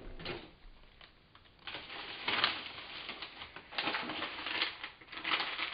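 Bags of frozen food rustling and clattering as someone rummages in a freezer drawer. The plastic crinkles and the frozen contents knock against each other, in several bursts after a fairly quiet first second or so.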